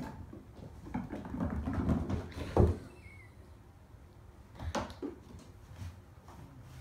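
Kittens scampering and pouncing on a hardwood floor, their paws scuffling and knocking against cardboard scratcher toys. One loud thump comes about two and a half seconds in, and a couple of sharper knocks come near the five-second mark.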